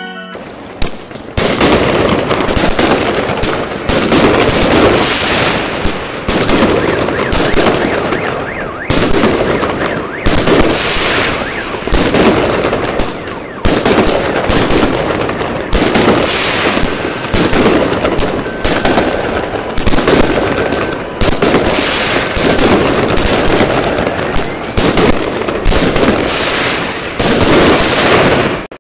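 New Year fireworks going off in a long volley: a sharp bang every second or two, each followed by a crackling, hissing tail, so that the crackle never lets up.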